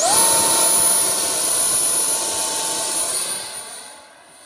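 Arrows Hobby Avanti 50mm electric ducted fan jet spooling up sharply to full throttle for launch, then holding a loud, steady, high-pitched whine that fades over the last second or so as the jet flies off.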